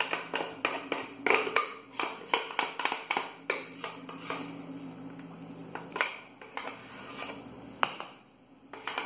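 Spatula scraping cake batter out of a plastic blender jar into an aluminium tube pan: a run of small scrapes and taps that thins out after a few seconds, with a couple of sharper taps later on.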